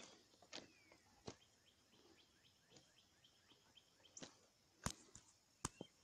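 Faint footsteps on railway track ballast, an irregular sharp step about once a second. A bird calls in a quick run of short, falling chirps.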